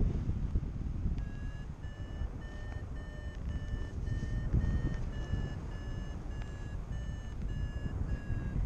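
A paragliding variometer beeping in a steady run of short, high tones, about two a second, starting about a second in. This is the climb tone, the sign that the glider is rising in a thermal. Wind rushes loudly on the microphone underneath.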